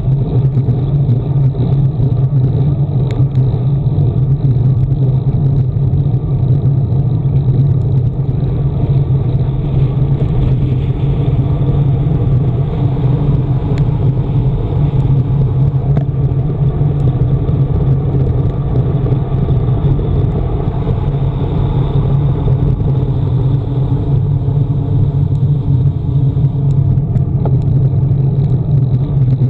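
Steady low rumble of wind buffeting a handlebar-mounted camera's microphone on a fast road-bike descent, with tyre noise on the asphalt underneath.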